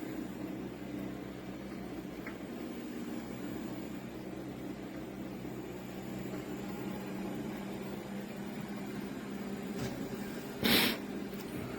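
Shark robot vacuum running with a steady motor hum. A short, loud burst of noise cuts in near the end.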